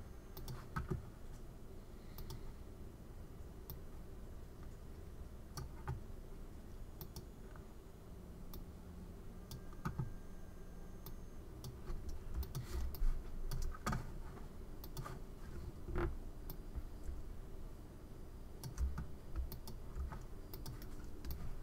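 Computer keyboard keystrokes and mouse clicks, faint and scattered at irregular intervals, over a low steady hum.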